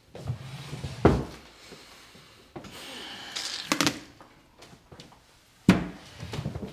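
Tableware handled at a dining table, with a sharp knock about a second in and a short hiss with clicks around the middle. Near the end a glass bottle is set down hard on the tabletop with a loud knock.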